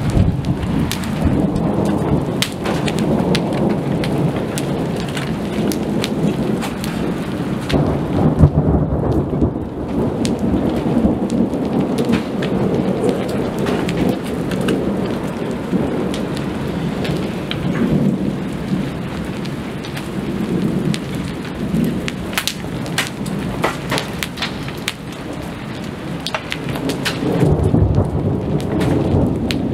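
Thunderstorm: steady rain with many sharp raindrop taps, under rolling thunder that rumbles and swells several times. The loudest swells come about eight seconds in and again near the end.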